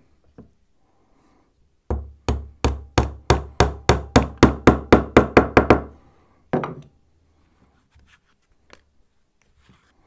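Small hammer tapping glued wooden dowels into drilled holes in a wooden toy tractor: a run of about fifteen sharp wooden knocks that get faster, then one more a moment later.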